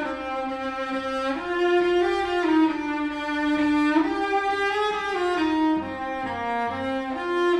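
String quartet music in which three bowed instruments (a violin, a viola and a cello) play slow, sustained chords that change step by step about once a second, while the fourth player, a violinist, rests.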